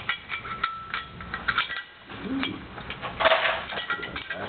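Steel parts of an M2 .50-calibre machine gun clicking and clinking as they are handled and fitted together by hand, with a louder clatter a little after three seconds in.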